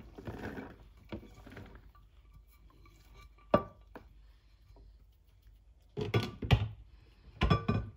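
Chopped vegetables scraped by hand off a white ceramic plate into a large salad bowl, a rustling scrape at first, then a single sharp knock midway and two louder bursts of clatter near the end.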